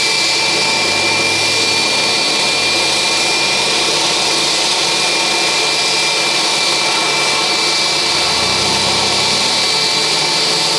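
Jet turbine of a JetBlue Airbus A320 at the gate, running with a steady high-pitched whine over a loud rush of air.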